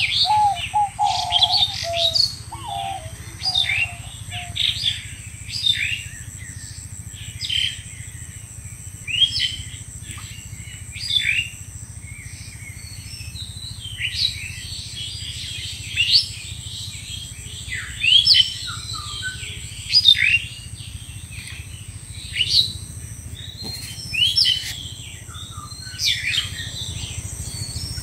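Birds chirping: short, high chirps repeating every second or two, with a lower call among them in the first few seconds.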